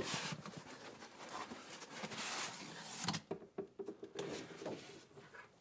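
Cardboard transmitter box being opened by hand: a rustling scrape of the lid sliding for about three seconds, then quieter, with a few light knocks and rustles of the packaging.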